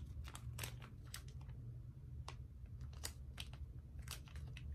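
Faint, irregular crinkles and clicks of sunglasses packaging being handled and opened by hand.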